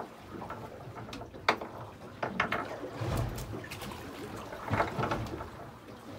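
Fishing gear handled on a boat deck: scattered sharp clicks and knocks, with a low thud about three seconds in.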